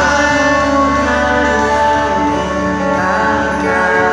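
Live pop music from an outdoor stage's loudspeakers: a singer and band holding long, steady notes over a constant bass note.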